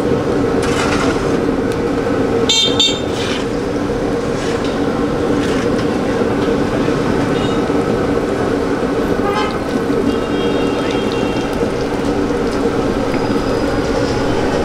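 Street traffic with a steady hum and car horns: a pair of short toots a few seconds in, and more horn sounds about two-thirds of the way through. Under it, samosas sizzle as they deep-fry in a large wok of hot oil.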